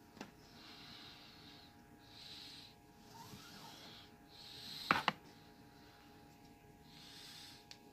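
Paracord being pulled and slid through a woven bracelet by hand: a few soft, faint swishes of cord rubbing on cord, with one sharp click about five seconds in.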